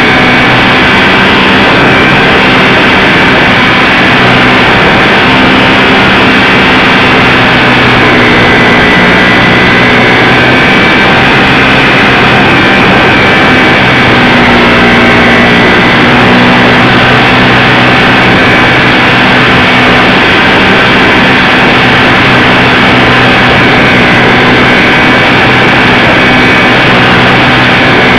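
Electric motor and propeller of a radio-controlled ParkZone Super Cub model plane in flight, heard from a camera mounted on the plane: a loud steady whine over a constant rush of noise, its pitch shifting slightly a few times with the throttle.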